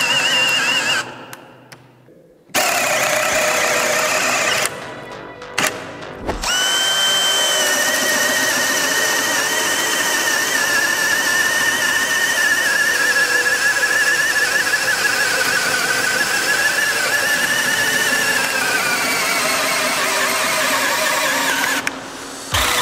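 Cordless hammer drills boring a 40 mm auger bit into soft timber in first gear: two short runs that stop and start, then a DeWalt DCD999 running under load for about fifteen seconds with a steady high motor whine, stopping near the end.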